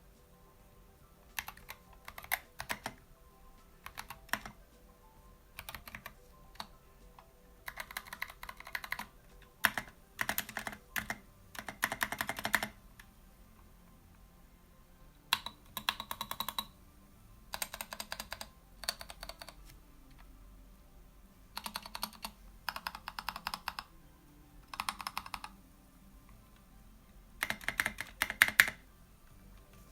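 Typing on a mechanical keyboard fitted with Kailh Box Royal tactile switches and SA profile keycaps: bursts of rapid keystrokes separated by pauses of a second or two.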